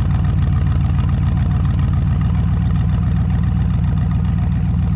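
Chevrolet Silverado pickup's engine idling steadily, heard right at the exhaust tailpipe: an even, unchanging low rumble.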